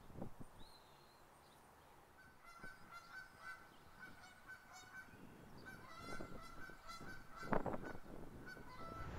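Geese giving a run of short, quick repeated honking calls, several a second, starting about two seconds in, with a low thump near the end.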